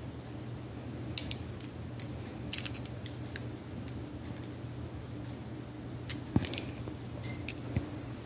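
Light sharp clicks and taps of a pointed metal nail tool working under a press-on nail, with the nails tapping together as they are handled. The clicks come scattered, in small clusters about a second in, around two and a half seconds, and around six seconds.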